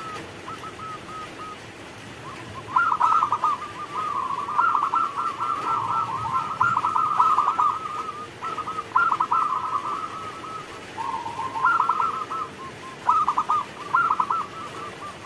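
Zebra dove (perkutut) cooing its song: phrases of rapid, stuttering notes, with short pauses between them.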